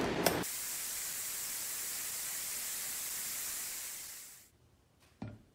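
Electric powder-coating oven door latched shut with a sharp click, cutting off the louder rumble, followed by a steady high hiss that fades out around four seconds in. A single short knock near the end.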